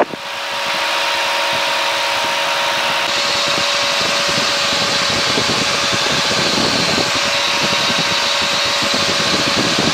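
Steady cabin noise of an Aquila AT01 light aircraft in flight: its engine and propeller running with rushing airflow, with a steady hum running through it. The noise swells over the first second and turns brighter and hissier about three seconds in.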